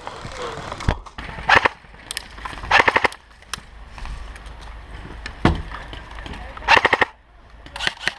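Airsoft guns firing in a skirmish: scattered single shots and short bursts, loudest about a second and a half in, around three seconds and near seven seconds.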